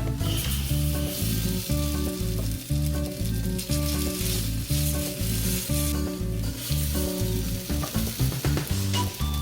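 Potato pancake batter frying in oil in a pan, with a steady sizzle that swells and eases over the few seconds.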